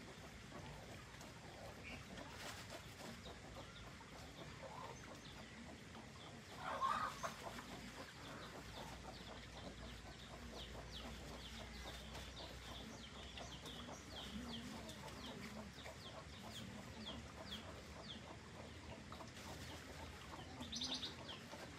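Faint farmyard animal calls: soft low calls and a long run of short, high chirps, with one louder cry about seven seconds in.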